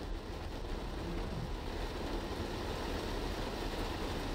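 Steady low rumble of a car driving on a wet road, heard from inside the cabin: tyre and road noise.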